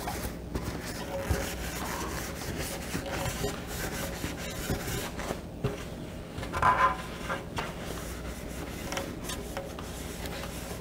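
Cloth rag rubbing back and forth over a painted motorcycle gas tank, wiping it down with mineral spirits to clean off paint residue before sealing. The rub is continuous, with a louder, squeakier stretch about two-thirds of the way through.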